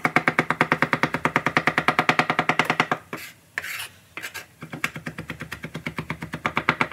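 Kitchen knife rapidly chopping garlic on a wooden cutting board: quick, even knocks of the blade on the wood, about ten a second, in two runs with a pause of about a second and a half between them.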